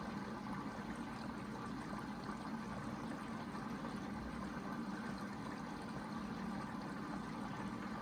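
Hoover VHD 9163 ZI front-loading washing machine taking in water at the start of its quick wash cycle: a steady flow of water with a low hum.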